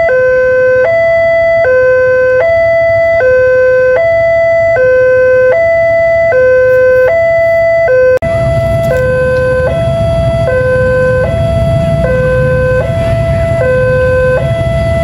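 Electronic warning alarm at a railway level crossing, sounding a steady two-tone pattern that switches pitch about every three-quarters of a second. About 8 seconds in there is a sudden break, and a louder low rumble runs under the alarm after it.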